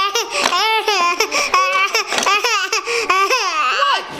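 Five-month-old baby girl laughing and making high-pitched baby noises in quick, continuous bursts.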